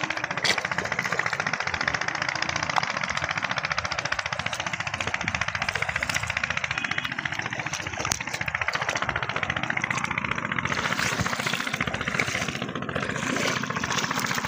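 An engine running steadily with a rapid, even pulse.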